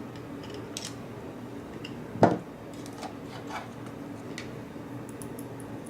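Light metallic clicks and scrapes from a picked-open padlock being worked at with a tool to free its core, with one louder knock a little over two seconds in.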